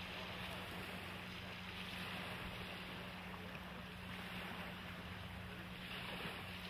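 Tugboat engine running steadily with a low, even drone, under a constant wash of water and wind noise.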